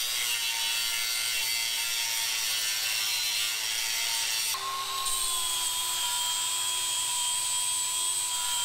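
Angle grinder grinding metal, a steady rasp under a thin motor whine. About halfway through the whine steps up slightly in pitch and holds steady.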